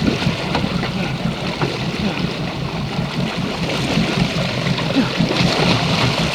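Fishing boat's engine running steadily, with water sloshing and gurgling against the hull.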